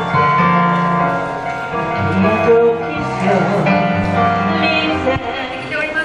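Music: a song with a steady bass line and a singing voice.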